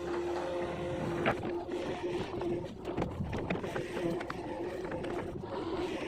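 Hitachi long-arm excavator working: a steady engine drone with a held whine, and scattered knocks and clanks, the sharpest about a second in.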